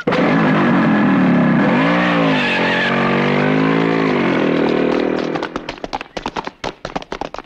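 Motorcycle engine revving, its pitch dipping and rising again about two seconds in, then fading. From about five seconds in, a fast run of sharp hits and knocks follows.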